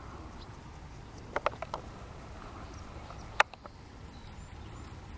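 Open-field ambience with a steady low rumble, like wind on the microphone. A quick run of four or five short sharp clicks or chirps comes about a second and a half in, and one louder sharp click past the three-second mark.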